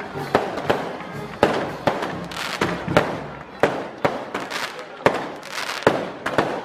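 Daytime fireworks going off in a rapid, irregular series of sharp bangs, about one or two a second, each followed by a short echo.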